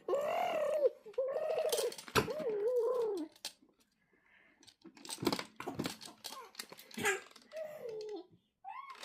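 Six-month-old baby babbling in a high voice, several sliding, wavering phrases in the first three seconds, then scattered clicks and taps and one more short babble near the end. The babbling is the baby's sign of getting sleepy.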